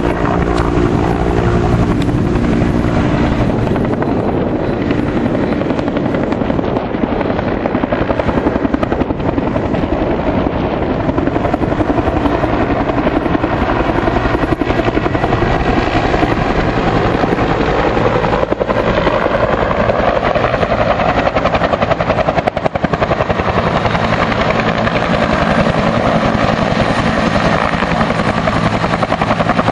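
Firefighting helicopter running close by, its rotor beating steadily over the engine noise, loud, with the sound swelling a little past the middle.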